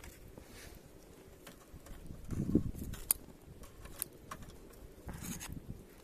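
Metal tongs being picked up and handled over a small wood-fire stove: a few sharp clicks and a short rustle, with a dull low thump about two and a half seconds in as the loudest sound.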